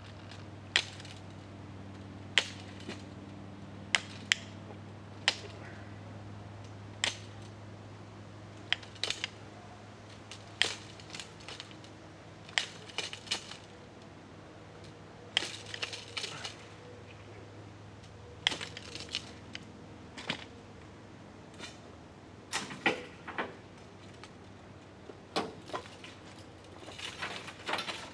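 Bicycle wheel spokes being cut one after another with hand cutters: sharp metallic snaps at irregular intervals, some with a short clink, over a steady low hum.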